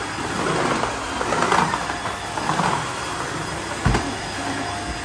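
Cordless wet-dry floor vacuum running steadily as it is pushed across a tile floor, vacuuming and wet-mopping at once. A single sharp knock sounds about four seconds in.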